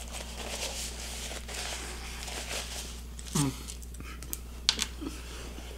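Close-up eating sounds: soft chewing and mouth clicks with paper napkin and wrapper crinkling, a brief hummed "mm" about three seconds in, and a couple of sharp smacks near the end.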